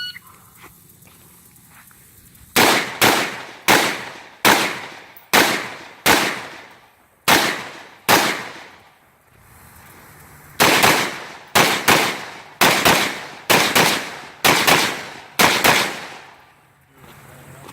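A shot-timer beep right at the start, then a rifle stage being shot: about eight spaced rifle shots, a pause of about two seconds, then a quicker string of about a dozen shots, many in pairs.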